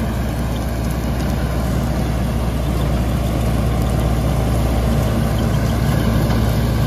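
Straw reaper pulled and driven by a John Deere 5210 Gear Pro tractor, running steadily as it cuts stubble and blows the straw into a trolley: a continuous machine drone over a broad rushing noise. The tractor's engine is quiet under the reaper's noise.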